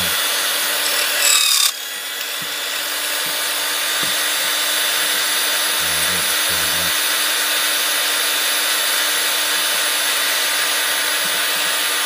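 Silca 007-A portable key duplicator running steadily, its motor humming while the cutter mills a key blank held in the carriage. A brighter, louder cutting sound stops abruptly about two seconds in, and the machine keeps running.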